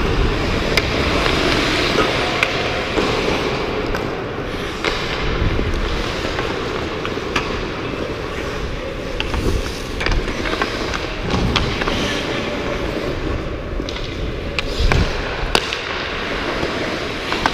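Ice hockey skate blades scraping and carving on rink ice, with sharp clacks of sticks and puck striking now and then and a louder knock near the end.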